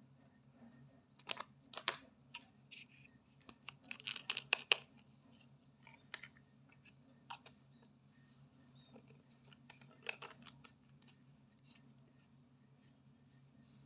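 Scattered light clicks and short rustles as hands handle a paper leaflet, a small hair oil bottle and its cap. There is a quick run of sharper clicks about four seconds in and another click about ten seconds in, over a faint steady low hum.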